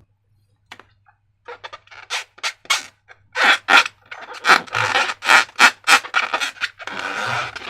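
Hands squishing and handling slime: an irregular run of short crackling sounds that starts sparse and gets quicker and louder after a couple of seconds.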